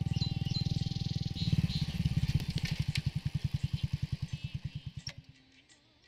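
Small motorcycle engine idling with a fast, even thudding beat that slows and cuts out about five seconds in as the engine is switched off. Birds chirp in the first second or so.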